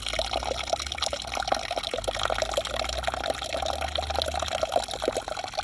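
Water from a spring running and splashing steadily, a continuous bubbling trickle.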